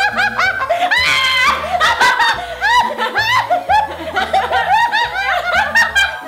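Women laughing hard in rapid, high-pitched bursts of "ha" syllables, over background music with a steady bass line.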